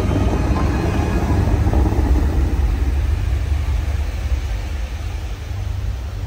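Dubai Fountain water jets rushing and their spray falling back onto the lake, over a deep steady rumble that eases a little near the end.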